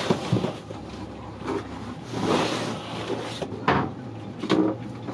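Stowed gear being rummaged through and pulled out: rustling and shuffling, with a few short, sharp knocks of wood and hard objects, the two loudest under a second apart near the end.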